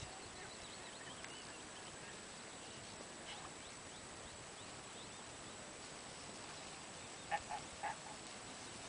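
Faint steady outdoor hiss, then three short animal calls in quick succession near the end.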